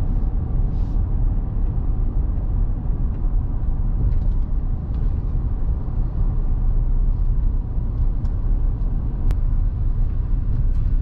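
Steady low rumble of a moving vehicle's road noise, with a single faint click about nine seconds in.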